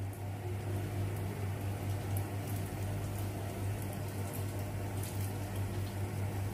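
Yeast doughnuts frying in a pan of hot oil: gentle bubbling with a few faint crackles, over a steady low hum.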